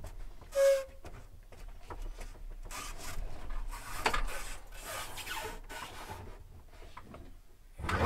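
Irregular rubbing and scuffing handling noises, with one short squeak about half a second in that is the loudest sound.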